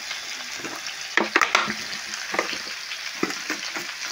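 Diced potatoes and vegetables sizzling in oil in a steel kadai, with a steel spatula scraping and clinking against the pan as they are stirred. The clatter is loudest about a second in.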